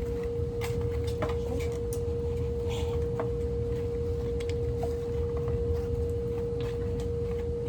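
A steady, unwavering hum-like tone over a constant low rumble, with a few faint scattered clicks.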